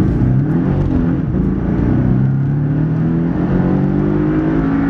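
Porsche 718 Cayman's 2.0-litre turbocharged flat-four pulling hard under acceleration in sport mode, loud, with its pitch rising steadily through the gear. Heard from inside the cabin.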